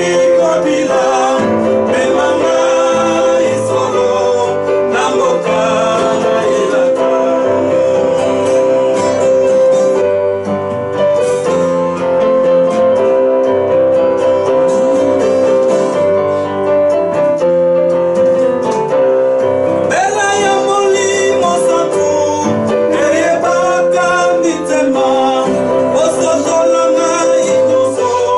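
A man singing a gospel song, accompanying himself on an acoustic guitar.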